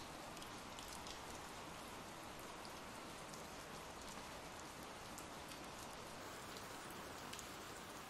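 Faint, steady recorded rain, an even hiss of rainfall with scattered individual drop ticks.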